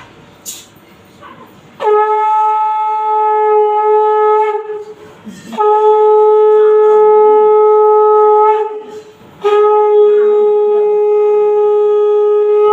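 Conch shell (shankha) blown in three long, steady blasts on one held note, each about three seconds long, with short breaks between them.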